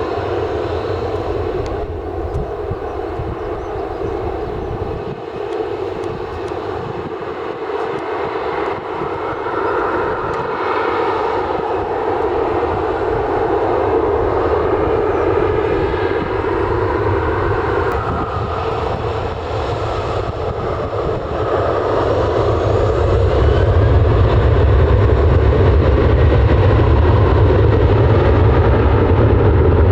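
Fixed-wing airliner engines running steadily, with a deep low rumble that swells louder about two-thirds of the way through.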